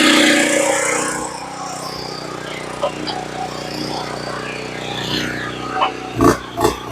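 Log truck's engine running steadily while unloading logs, with a loud rushing noise that dies away in the first second or so and a few sharp knocks about six seconds in.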